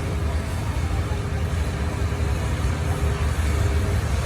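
Farm tractor engine running steadily with a deep, even rumble.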